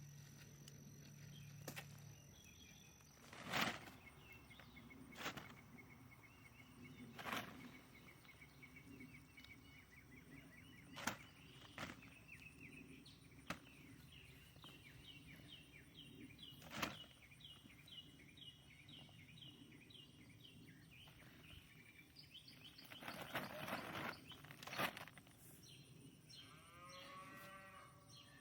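Quiet outdoor garden sounds while potatoes are dug by hand: scattered sharp knocks and thuds, a low drawn-out call in the first two seconds, and a run of quick bird chirps in the middle.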